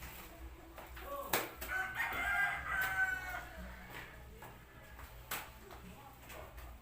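A rooster crowing once, about two seconds in, in a call of just over a second. Two sharp knocks come before and after it.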